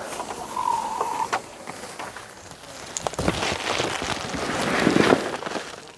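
Wind buffeting the microphone outdoors: a rough rushing noise that swells in gusts, strongest about three to five seconds in. A brief high tone sounds about half a second in.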